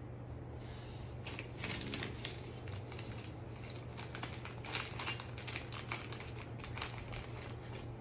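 Small metal clicks and rattles as the aluminium frame of a dog wheelchair is handled and adjusted during assembly, coming in irregular bunches. A steady low hum runs underneath.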